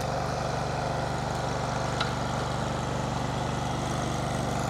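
Engine idling steadily, with no change in speed or level.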